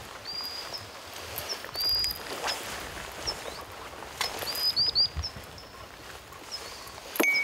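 A small bird calling in short, high chirps, repeated every second or so, once in a quick run of three. A few sharp clicks and knocks come between them, the strongest near the end.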